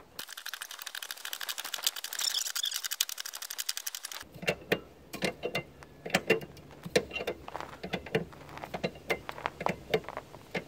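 Car jack being worked to lift a minivan: a fast run of mechanical clicking for about four seconds, then slower, irregular clicks and creaks.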